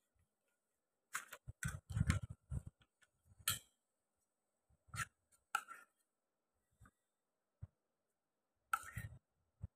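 Hands handling a plastic sheet on a tabletop: short crinkles and rustles mixed with light knocks, coming in scattered bursts with quiet gaps between. The bursts are busiest around two seconds in and again near the end.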